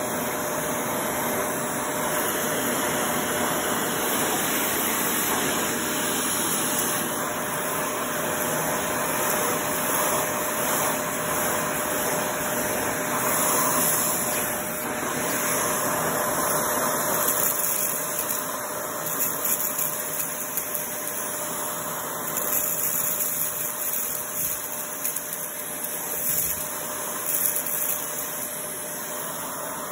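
Shark vacuum cleaner running with its crevice tool on carpet, sucking up small rocks and fluff. Short sharp clicks of gravel rattling up the tube come over the steady motor noise, more often in the second half.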